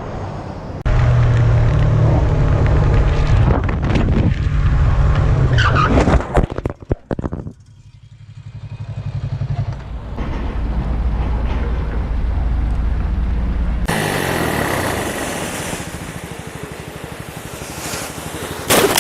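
Motorcycle engines running and revving, with a cluster of sharp crash impacts about six to seven seconds in.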